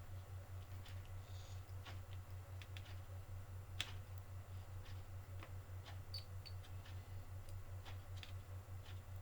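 Faint scattered clicks and taps of small bench soldering work, over a steady low electrical hum that pulses about five times a second.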